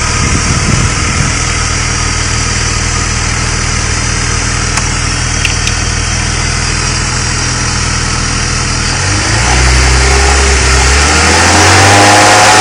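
BMW E46 engine idling with a rattle from the area of the VANOS variable valve timing unit, then revved up about nine seconds in and a little higher again near the end.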